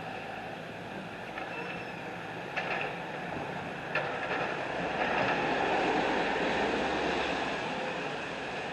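Steady engine rumble of heavy vehicles over a wash of noise, with a few sharp knocks in the first half and a swell in loudness about five seconds in.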